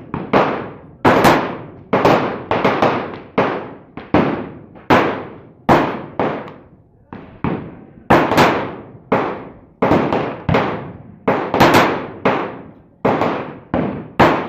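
Glock 19 Gen 4 9mm pistol firing a long string of shots, roughly two a second at an uneven pace. Each shot is a sharp crack with a short echoing tail.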